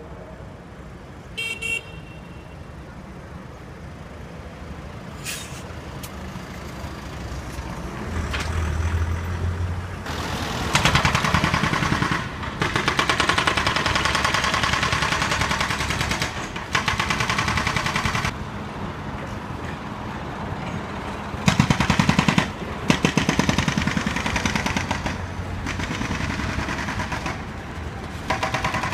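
Street traffic hum, then a loud, very rapid mechanical rattling-hammering in long bursts of several seconds that start and stop abruptly, from about ten seconds in. A short high toot comes near the start.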